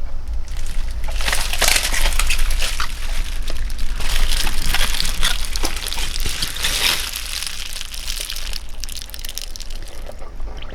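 A wet towel being squeezed and wrung in water by hands in thick natural-rubber gloves: squelching, crackling water and cloth, with dripping and sloshing. It is busiest for the first several seconds, then eases off.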